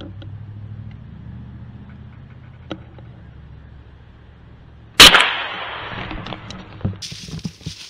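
A single rifle shot about five seconds in, sharp and loud, with a short echo trailing off, over a faint steady low hum.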